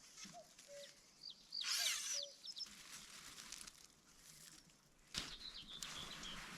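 Small birds chirping faintly in short high notes, twice in scattered runs, with a brief rustle about two seconds in and another from near the end.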